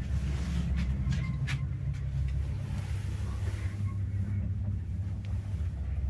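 MLZ passenger lift running, a steady low hum with a few sharp clicks in the first second and a half.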